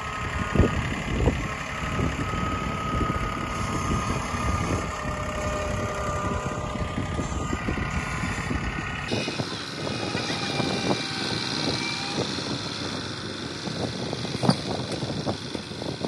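Compact farm tractor engine running under load as the tractor carries a log on its front-loader forks, with frequent knocks and rattles. Its low rumble drops away abruptly about nine seconds in.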